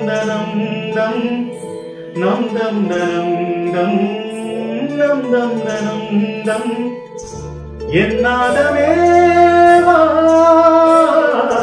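Male voice singing a wordless, gliding Carnatic-style alaap over a steady drone of backing music, with a deeper bass note joining about eight seconds in.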